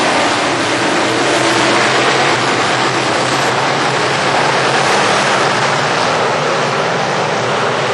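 A pack of GM crate late model dirt race cars running laps together, their V8 engines blending into one steady, loud drone.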